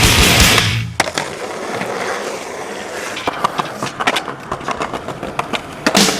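Loud rock music for the first second, then a skateboard's wheels rolling on pavement with a steady hiss. Sharp clacks of the board hitting the ground come about a second in, a few more in the middle, and a loud one near the end.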